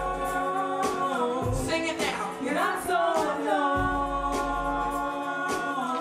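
A vocal trio singing long held notes in close harmony, the chord shifting twice, over a low sustained bass note.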